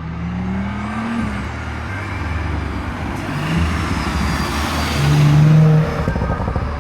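AI-generated car engine sound, revving unevenly. A short rising whine comes in the first second, and the loudest burst of engine noise comes about five seconds in.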